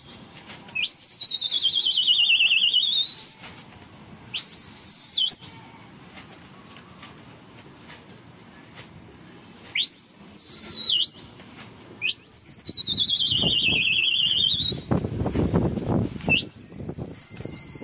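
A person's shrill whistles, given in a series of calls with pauses between: some held on one steady pitch, two long ones warbling rapidly up and down. This is whistling to a flock of racing pigeons flying overhead.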